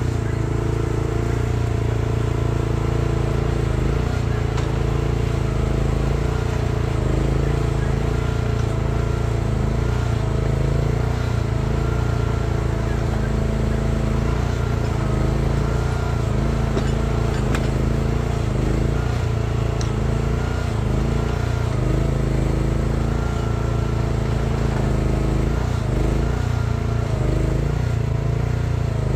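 Chery one-ton mini excavator's Briggs & Stratton 13.5 hp engine running steadily under load while digging, with a whine that wavers in pitch as the arm and bucket work.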